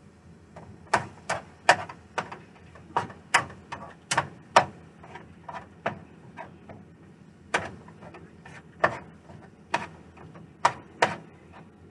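Cooking utensil knocking and scraping against a nonstick skillet in irregular sharp taps, some in quick pairs, as ground beef is stirred and broken up while it browns.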